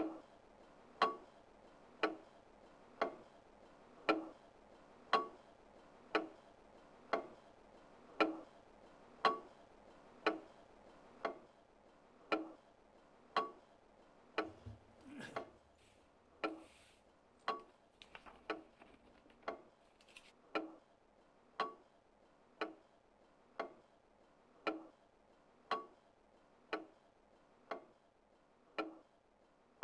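Clock ticking steadily at about one tick a second, each tick with a slight ring. A few faint rustles and a soft low thump come around the middle.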